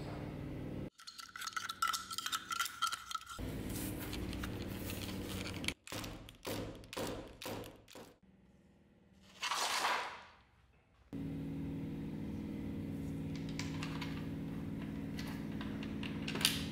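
Light metallic clinks, taps and scrapes as a thin sheet-metal chape is fitted onto the tip of a leather-covered sword scabbard, in several short stretches that start and stop abruptly. A brief hiss swells and fades about ten seconds in, and a steady low hum fills the last five seconds.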